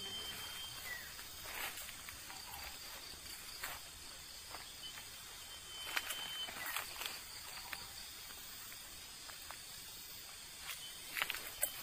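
Faint rustles and light knocks of someone moving over dry, leaf-littered ground and handling a bamboo tube, over a steady high hiss.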